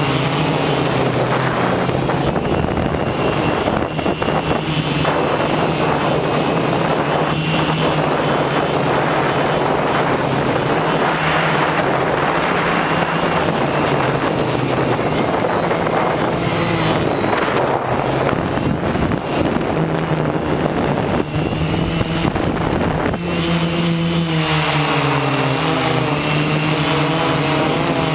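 FPV drone's electric motors and propellers running with a steady buzzing whine, heard close up through the drone's onboard camera. Near the end the motor pitch slides up and down with throttle changes.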